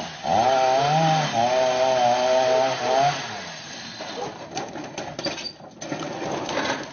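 Chainsaw running at high revs for about three seconds, its pitch wavering slightly, then dropping away to quieter scattered cracks and knocks.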